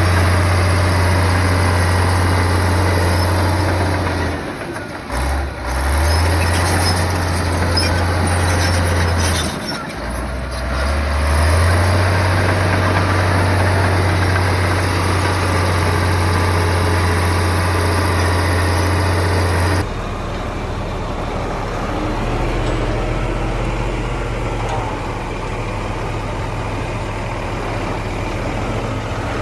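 Diesel engine of a heavy earthmoving machine running with a steady low drone, dipping briefly twice. About two-thirds of the way through, the sound switches abruptly to a somewhat quieter, lower engine drone.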